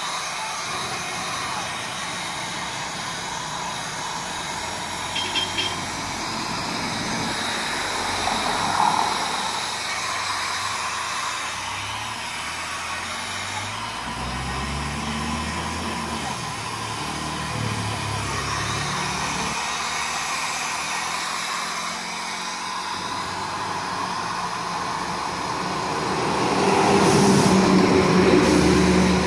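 Handheld hair dryer blowing steadily on a husky's fur. A motor vehicle's engine is heard rising and falling in pitch partway through and grows louder near the end.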